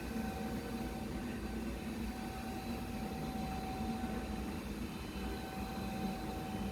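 Xiaomi window-cleaning robot running: a steady whir from its suction fan and motors, with a constant high whine over it.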